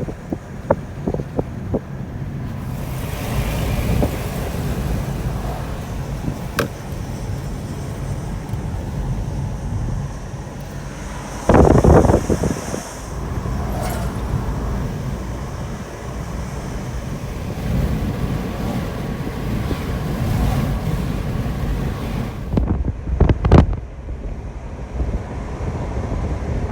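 A car driving: steady engine and road rumble, with two short, louder bursts, one near the middle and one near the end.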